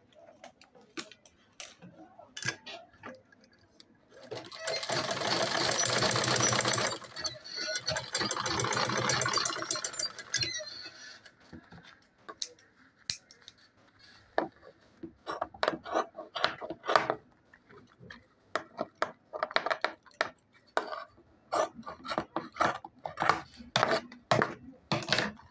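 Sewing machine stitching through the purse fabric in a steady run of about six seconds, starting about four seconds in. Later comes a series of short sharp clicks and snips as scissors trim the piece.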